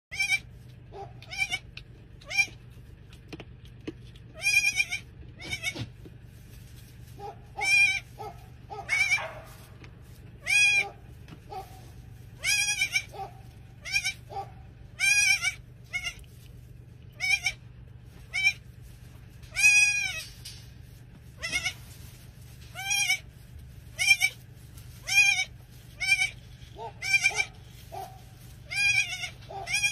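Newborn goat kids bleating over and over, short high-pitched cries about every one to two seconds, over a low steady hum.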